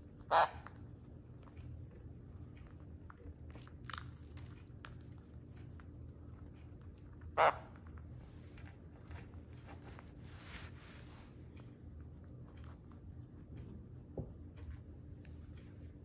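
Sun conure cracking and husking sunflower seeds in its beak, with many small crunches and clicks. Three louder short sounds stand out, about half a second, four and seven and a half seconds in.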